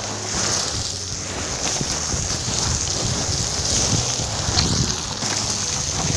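Hiking boots crunching and sliding step by step down loose volcanic scree, with wind buffeting the microphone.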